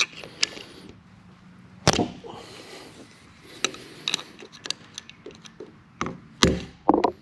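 Hammer tapping a punch to bend down the lock tab of a tab washer on a lathe gearbox shaft: a series of sharp metallic taps at uneven intervals. Near the end comes a heavier thump, the hammer bumping the camera.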